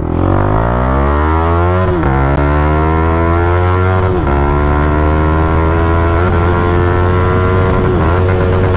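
Yamaha R15 V3's single-cylinder engine, fitted with an aftermarket Akrapovic-replica exhaust, pulling hard under full acceleration through the gears. The pitch climbs, then drops at each of four quick upshifts about two seconds apart.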